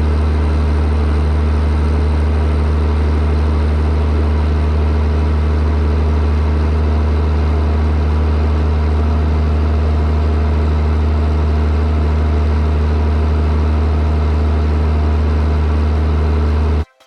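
White 2-135 diesel tractor running steadily under load while pulling a New Holland BR770A round baler, a constant deep engine hum with the baler's machinery underneath. It cuts off suddenly near the end.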